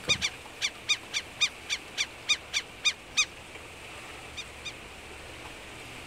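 A gull calling: a quick series of about a dozen short, high-pitched calls, three or four a second, that stops a little after three seconds in, followed by two fainter calls.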